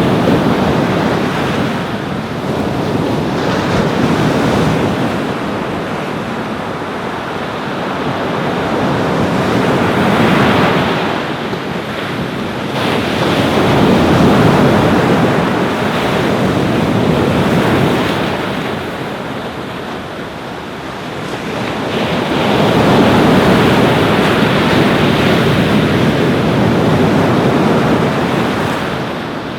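Ocean surf washing onto a beach: a continuous rush that swells and fades in slow surges as the waves come in, several seconds apart.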